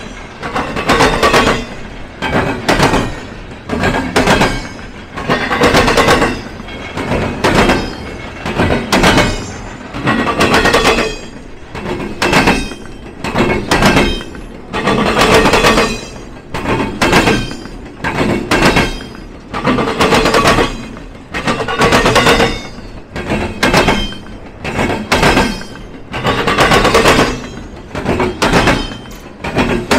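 Freight train wheels pounding across a railroad diamond crossing: a loud burst of clatter about once a second, with a metallic ring in each, as wheelset after wheelset bangs over the gaps in the crossing.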